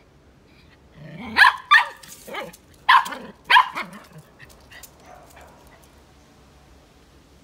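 Small dog barking several times in quick succession at a hooded cobra in front of it, the barks bunched in the first four seconds before it falls quiet.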